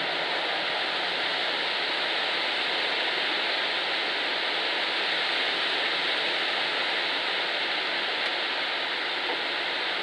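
Wind blowing through a leafy tree: a steady rushing rustle of leaves, even throughout, with no gusts or breaks.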